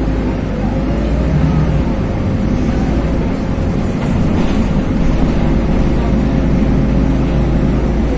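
LiAZ 5292.21 city bus heard from inside the passenger cabin while driving: a steady low rumble of engine and road noise with a faint constant hum, growing slightly louder about halfway through.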